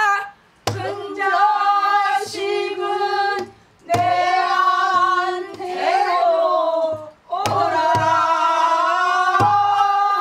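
A woman singing pansori in long, held, wavering notes, in phrases broken by short breaths. She accompanies herself on a Korean buk barrel drum: a few sharp stick clicks and low thuds mark the beat.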